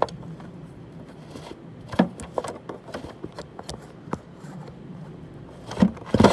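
Scattered light clicks, taps and scrapes of hands working a loosened bolt out by hand among metal and plastic parts, with a few louder knocks near the end.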